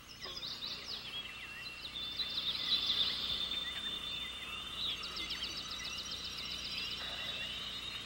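Several birds singing together, a dense mix of chirps, trills and quick rising and falling whistles, over a steady high thin tone. About five seconds in, a fast, even ticking trill runs for roughly two seconds.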